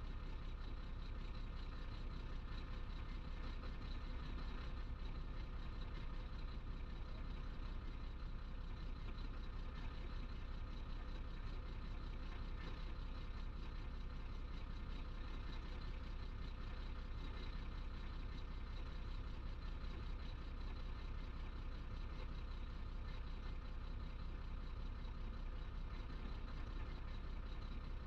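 Chenglong truck's diesel engine idling steadily, heard from inside the cab while the truck stands still.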